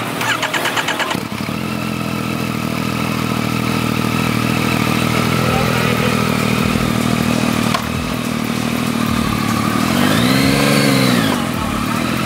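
Yamaha FZ-09's three-cylinder engine running at idle through a Yoshimura slip-on exhaust, steady and even. About ten seconds in, the throttle is blipped once and the pitch rises and falls back to idle.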